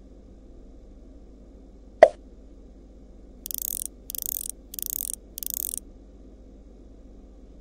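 Animation sound effects: a single sharp pop about two seconds in, then four short bursts of high hissing, evenly spaced about two-thirds of a second apart, over a faint steady hum.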